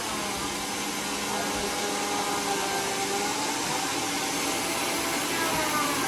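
Homemade sawmill running steadily between cuts: a constant hissing machine noise with a whine that slowly rises and falls in pitch.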